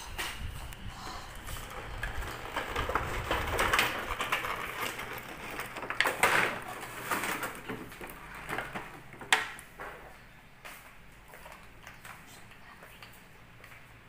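Clear plastic packaging crinkling and rustling as it is handled, with several sharp crackles; it quiets down after about ten seconds.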